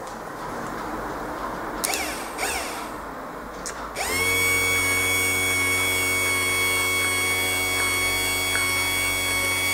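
A few light handling knocks, then about four seconds in a car windscreen wiper motor switches on and runs at a steady speed. It gives off a constant high whine with its open worm gearbox turning.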